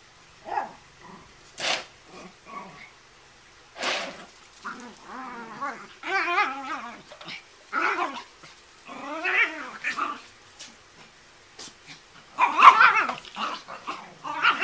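Small dogs (Chihuahuas and a Miniature Pinscher) growling and yapping in short, irregular bursts while playing, with the loudest flurry near the end.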